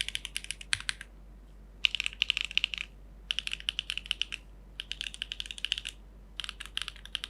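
Typing on a Geonworks F1-8X V2 mechanical keyboard with a polypropylene plate, SWK Dragon Ghost switches and Keykobo Tai Ji keycaps: rapid keystrokes in five runs of about a second each, separated by short pauses.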